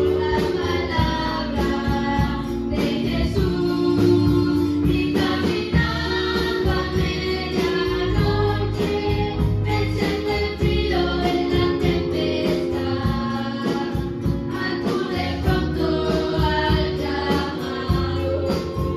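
Christian praise song: several voices singing together over instrumental accompaniment with a steady beat.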